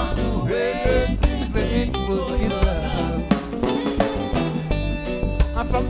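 Live reggae band playing an instrumental passage: drum kit with snare and kick on a steady beat, bass guitar, electric guitar and keyboard.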